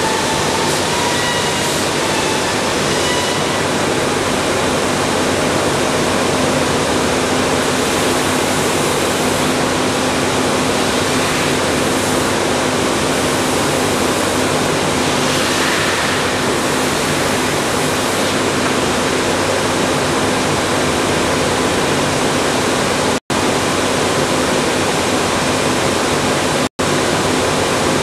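Kuhlmeyer TBS weld-dressing sanding machine running: a steady, loud rushing noise with a constant low hum. The sound cuts out for an instant twice near the end.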